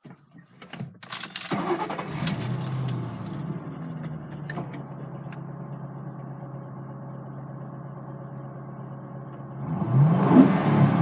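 A few clicks, then a 2005 Ford Mustang GT's 4.6L V8 starts about a second and a half in, flares briefly and settles into a steady idle. It revs up near the end.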